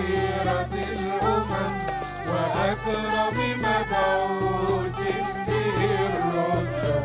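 Instrumental passage of an Egyptian religious song (madih) played by an Arabic ensemble: riq tambourine and darbuka drumming a steady rhythm under a melodic line from violin, nay and keyboard.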